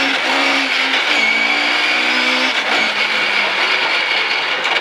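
Rally car engine at full throttle, pulling hard through the gears with brief breaks at the upshifts. About three seconds in it backs off, the note falling away as the car slows for the chicane.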